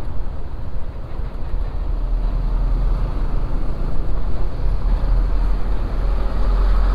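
Wind rushing over the microphone with the engine and road noise of a Honda CB150X motorcycle riding along at speed; a deep, steady rumble with no pauses.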